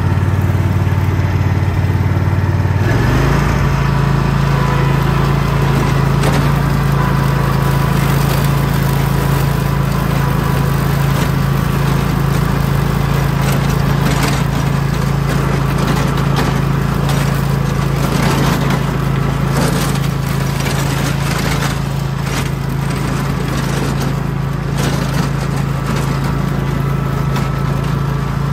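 Single-cylinder Kawasaki engine of a Rabbit riding lawn mower running steadily while mowing. About three seconds in, the engine speeds up to a higher steady pitch and holds there.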